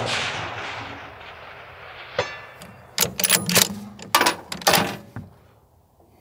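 The report of a 6.5 Creedmoor bolt-action rifle shot rolling away over the first two seconds, then the Bergara B-14's bolt being worked: a click, then two quick runs of sharp metallic clicks and clacks as the bolt is lifted, drawn back and run forward to chamber the next round.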